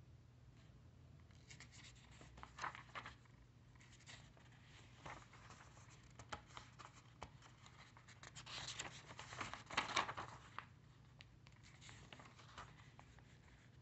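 Paper pages of a printed owner's manual being handled and turned: several short rustling bursts, the loudest about nine to ten seconds in, over a low steady hum.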